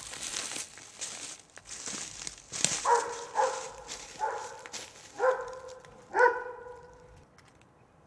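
A dog barking five times, roughly a second apart, the last two barks loudest. Crunching footsteps are heard in the first couple of seconds.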